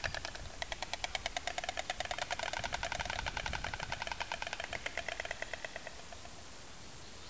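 White stork clattering its bill, its way of calling because it has no voice: a rapid, even run of wooden-sounding clacks. The run breaks briefly about half a second in, then continues and fades out near the end.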